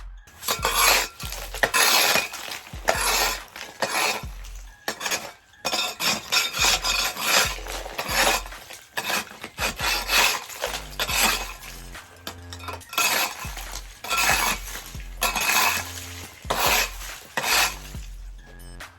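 A forged steel scraper scraping and chopping at a compacted layer of ice and snow, in repeated uneven strokes of about one to two a second, many landing with a dull thud.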